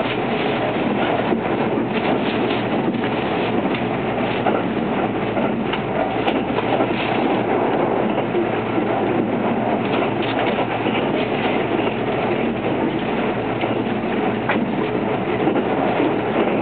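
Kintetsu 22600 series 'Ace' electric multiple unit running at speed, heard inside the passenger cabin: a steady rumble of wheels on rail with faint scattered knocks from the track.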